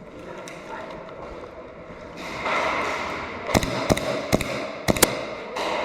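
Airsoft gun firing single shots: about six sharp cracks in quick, uneven succession near the middle and end, over a rushing noise that starts about two seconds in.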